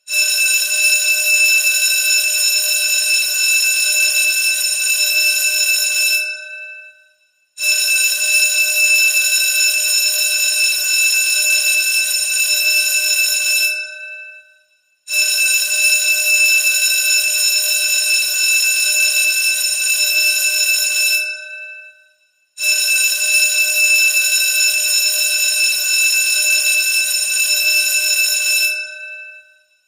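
Electric school bell ringing loud in four rings of about six seconds each, separated by gaps of just over a second; each ring starts abruptly and dies away at its end.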